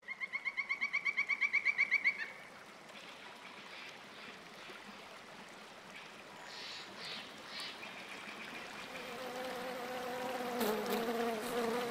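A rapid pulsed trill, about eleven notes a second and growing louder, for the first two seconds; then the soft rush of a shallow stream. From about nine seconds in, the steady buzz of honeybees flying at their hives comes in and grows louder.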